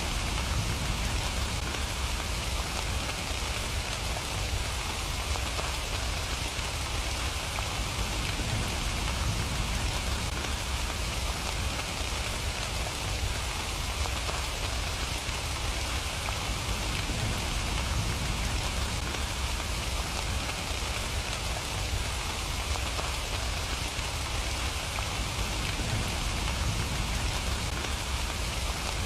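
Steady rain falling: an even hiss with a low rumble beneath, unchanging throughout.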